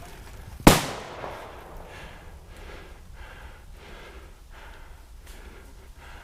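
A single loud, sharp bang about a second in, the loudest sound here. It is followed by steady heavy breathing, a breath roughly every half second or so.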